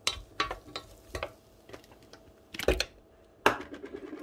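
Wooden spoon knocking and scraping against a pot while stirring chopped leeks and potatoes: a few sharp knocks, two louder ones in the second half, then a quick run of light taps near the end.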